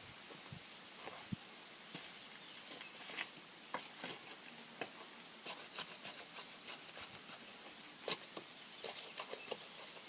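Quiet outdoor background with a short pulsing insect chirp in the first second, then scattered light clicks and ticks.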